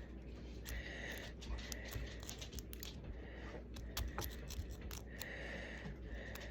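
A bent paper-clip pick and tension bar working inside a lock: irregular small metallic clicks and short scrapes as the pins are raked.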